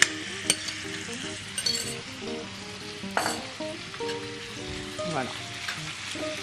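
Thin strips of raw beef sizzling steadily as they fry in hot olive oil in a pan, with a few sharp clinks of the glass bowl and pan, the loudest right at the start.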